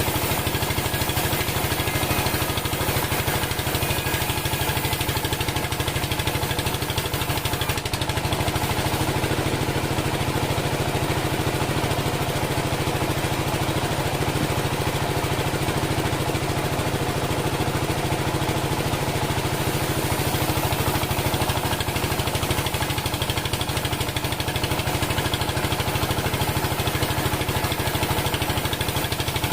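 Engine of a homemade band sawmill running steadily at an even speed.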